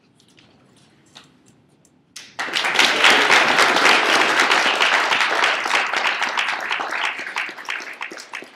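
A roomful of people clapping, breaking out suddenly about two seconds in and thinning out toward the end, applause for a finished class presentation.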